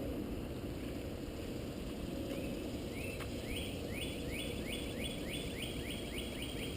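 A bird calling: a run of short rising chirps that starts about two seconds in and speeds up to about four a second, over a steady low background rumble.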